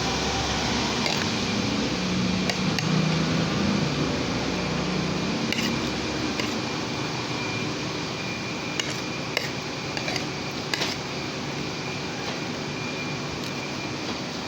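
Steady background hiss with a low hum in the first half, and about eight light clicks of utensils against a plate or glass as someone eats.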